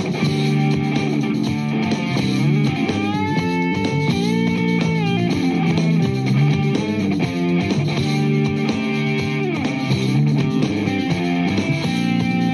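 Background music: an instrumental break in a pop-rock song, led by guitar, with a few bent, sliding notes a few seconds in.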